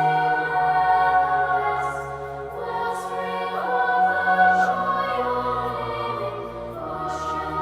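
Choir or voices singing slow, sustained chords with organ-like accompaniment, the notes held and changing every second or two.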